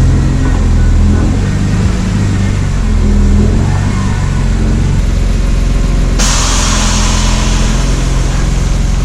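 Car engine running, its pitch rising and falling as it revs in the first few seconds, then holding steady. A loud rush of hiss joins it about six seconds in.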